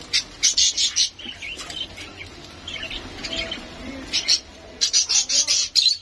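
Java sparrows (rice birds) chirping: rapid runs of short high chirps, loudest in the first second and again near the end.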